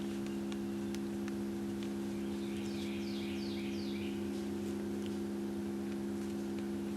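Steady electronic hum from a tone generator playing a 68 Hz tone through a small Bluetooth speaker, heard mostly as its overtones. Around the middle, a bird sings a quick series of about six falling chirps.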